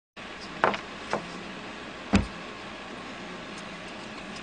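Steady road noise inside a moving car's cabin, with three sharp knocks in the first two and a half seconds.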